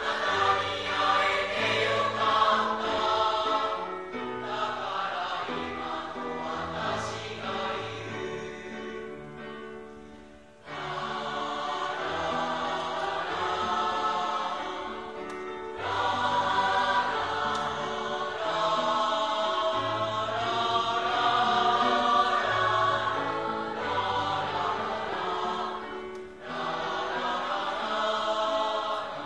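Mixed choir of school girls and boys singing together, in phrases with short breaks between them, the longest about ten seconds in.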